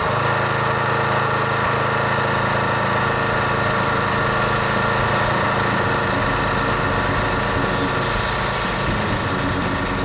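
Briggs and Stratton single-cylinder push-mower engine running steadily after a fresh start.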